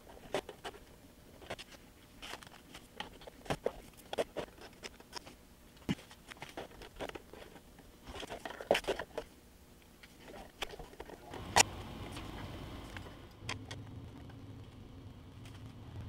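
Light, irregular clicks and taps of small plastic model parts and tools being handled on a workbench, with one sharper tap about two-thirds through. A low steady hum comes in at about the same point and keeps going.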